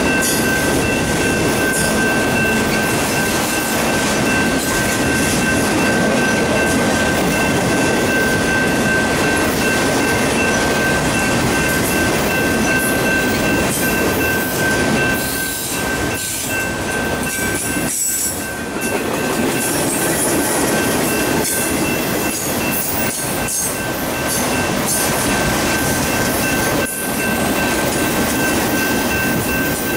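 Freight train of autorack cars rolling past at close range: a steady rumble and rattle of steel wheels on rail. A steady high-pitched tone sits over it and weakens about halfway through.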